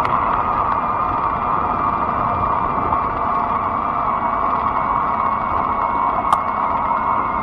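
Fat-tire electric bike riding along: a steady motor whine over a rumble of tyre and wind noise, with a single sharp click about six seconds in.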